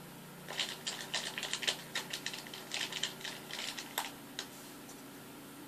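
A utensil stirring glitter-glue slime mixture and activator in a bowl, giving rapid, irregular clicks and taps against the bowl. The clicking starts about half a second in and dies away after about four and a half seconds, while the mixture is still thickening and has not yet turned into slime.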